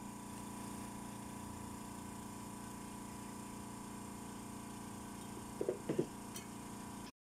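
A steady hum, then a few short whirring blips about five and a half to six seconds in as a pneumatic air drill's throttle lever is tapped briefly.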